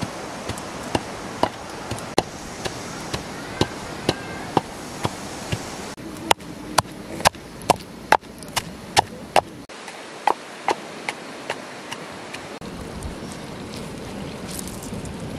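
Wooden pestle pounding chillies and garlic into a paste in a clay mortar: steady knocks about two a second, louder for a few seconds in the middle, stopping about twelve seconds in.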